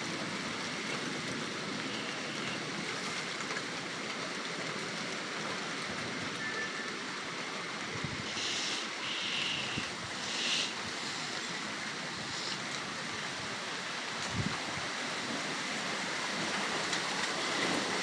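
Heavy rain pouring down in a thunderstorm, a steady even hiss, with a few brief louder hissing bursts about halfway through and a short low thump near three-quarters of the way.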